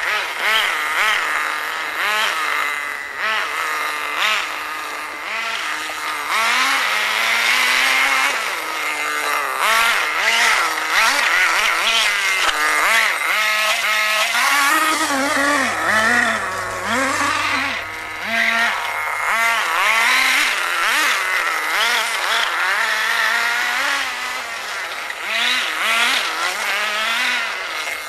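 Small nitro (glow-fuel) engine of a Redcat Racing RC buggy running. Its pitch rises and falls over and over as the throttle is worked.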